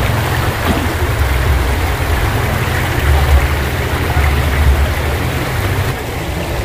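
Off-road 4x4 engine running at low revs, swelling twice around three and four-and-a-half seconds in, under a steady hiss.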